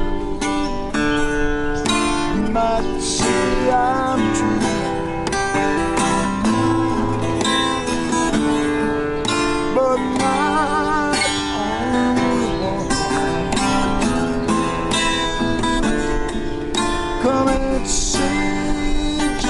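Acoustic guitar strummed in a steady song, with a man singing along over the chords.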